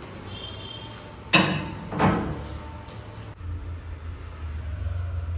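Steel house gate clanging: one sharp metallic bang about a second in, with a ringing tail, then a second clank about half a second later.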